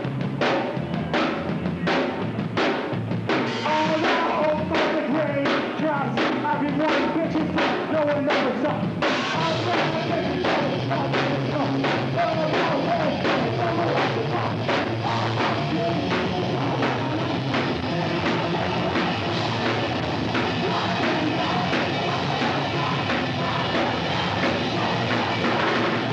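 Hardcore punk band playing live: fast, hard-hit drum kit under loud guitars and bass, with the sound getting fuller about nine seconds in.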